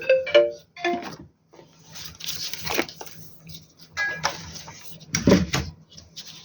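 Clinks, clicks and rattles of metal parts and circuit boards being handled while an inverter is taken apart, a few short ringing clinks near the start and a heavier clunk about five seconds in.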